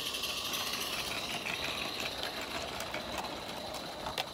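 Accucraft Baldrick live-steam model locomotive running past with a steady hiss of steam and a fast mechanical patter. A couple of sharp clicks near the end as the train's wheels run over the track.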